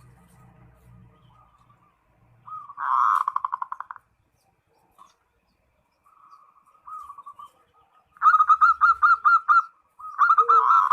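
Zebra dove (perkutut) singing its cooing song: soft runs of cooing notes broken by three louder bursts of rapid staccato coos. This is a rival-calling song used to lure other males.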